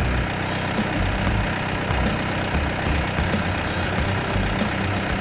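A vehicle engine running, with an irregular low rumble underneath.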